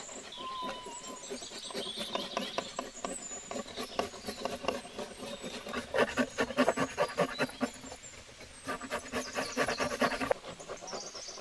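Two runs of rapid, even scraping or rubbing strokes, the first lasting several seconds and the second shorter near the end. Birds chirp in the background.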